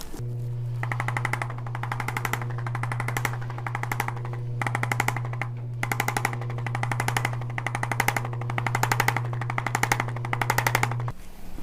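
A small electric motor hums steadily and cuts off suddenly near the end. Over the hum, rapid mechanical tapping comes in repeated bursts of about a second.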